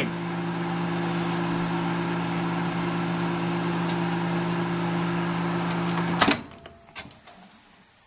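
Microwave oven running with a steady hum and hiss while heating a dead vacuum tube. About six seconds in the hum cuts off with a clunk as the oven stops and its door is opened, followed by a few faint clicks.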